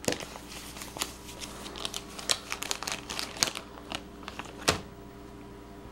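Wrapping on a card pack being crumpled and torn open by hand: a run of irregular crinkling crackles, with a sharper rip right at the start and another about four and a half seconds in.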